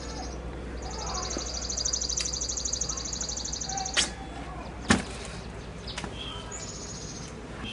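Songbirds calling: one gives a rapid, evenly pulsed high trill lasting about three seconds, with short chirps from other birds and a second brief trill near the end. Two sharp clicks sound about four and five seconds in.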